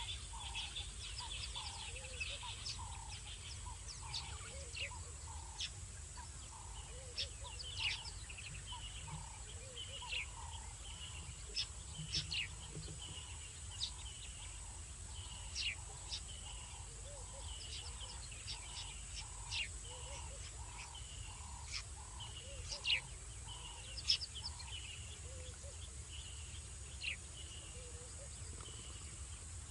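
A night-time animal chorus: a soft call repeating about every two-thirds of a second, with scattered sharp chirps and a steady high-pitched whine. No lion roar is heard.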